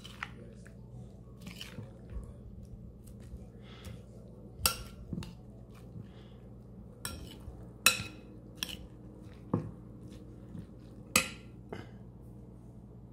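Metal spoon stirring chopped salsa in a glass mixing bowl: soft wet scraping of the fruit and vegetables, with several sharp clinks of the spoon against the glass.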